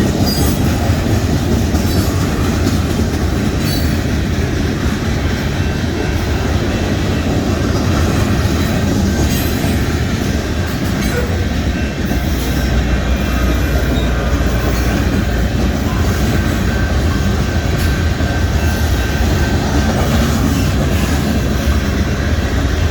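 Union Pacific mixed freight train rolling past: a steady rumble of freight cars with wheels clicking over rail joints and some high wheel squeal.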